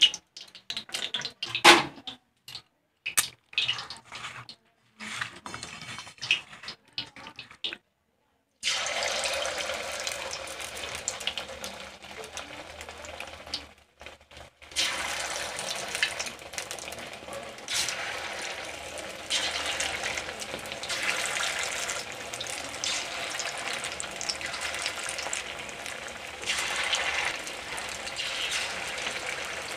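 Chicken pakoras deep-frying in hot oil in a kadai: a continuous sizzling hiss from about nine seconds in, with a short dip and then louder swells, after a stretch of short broken-up bursts of frying noise.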